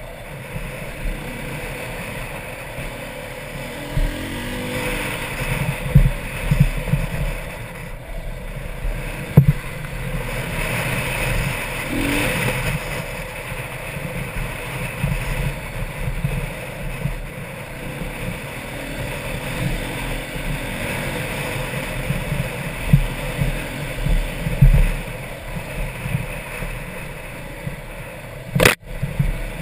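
Dirt bike engine running and rising and falling in revs as the bike is ridden over a rough dirt trail, with wind buffeting the microphone and occasional knocks from bumps. A sharp click near the end.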